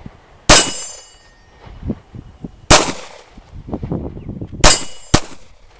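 Four pistol shots fired at steel plate targets, spaced unevenly, with the last two in quick succession. Some of the shots are followed by the high metallic ring of a steel plate being hit.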